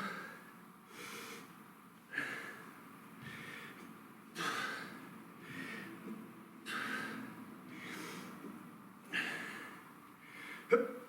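A man breathing hard under exertion: a sharp, forceful exhale about every two seconds, with softer breaths in between, in rhythm with kettlebell reps.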